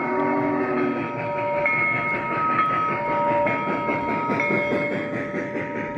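G scale MTH Big Boy model steam locomotive passing, its onboard sound system giving a low steam whistle that cuts off about a second in, followed by the clatter of the tender's and coaches' wheels rolling over the track.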